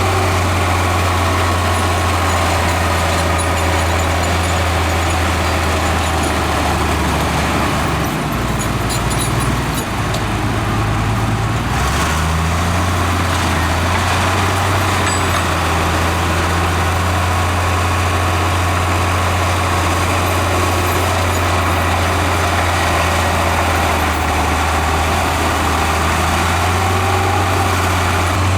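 Heavy diesel engine of earthmoving machinery running steadily, with a deep low note. Between about 8 and 12 seconds in the note shifts and wavers, then settles back to a steady run.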